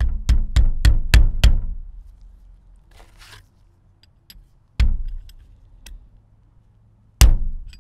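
Hammer blows on a driver seating a heated bearing sleeve onto a VW 02C transmission output shaft: six quick taps in the first second and a half, then two single blows later on, each with a short metallic ring.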